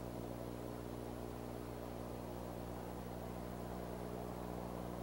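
Steady electrical hum with a layer of hiss from the nest camera's microphone. It stays unchanged throughout, with no calls or movement sounds standing out.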